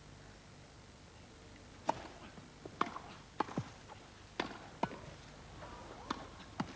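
Tennis ball being played on a grass court in a hushed stadium: after about two seconds of quiet, a serve and a fast rally give a string of about eight sharp pops, racket hits and ball bounces.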